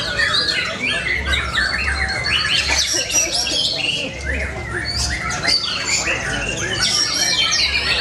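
White-rumped shamas (murai batu) singing all at once: a dense tangle of overlapping whistled phrases and calls from several caged birds.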